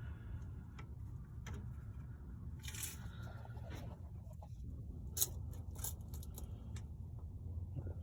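Scattered light clicks and a brief scraping rustle, about three seconds in, over a steady low hum: small handling noises.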